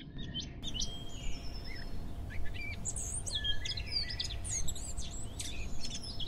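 Several birds chirping and twittering in quick, overlapping calls over a low background rumble, growing busier about half a second in.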